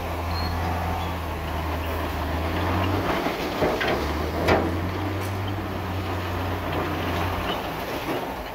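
Heavy diesel construction machinery running with a steady low drone, with a couple of sharp knocks a little past the middle.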